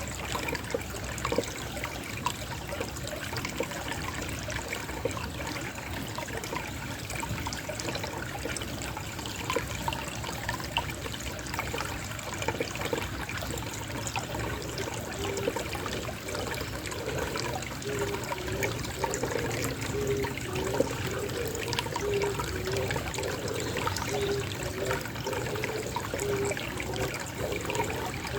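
Small stream trickling and splashing steadily. From about halfway, a dove coos low in a short repeated phrase over the water.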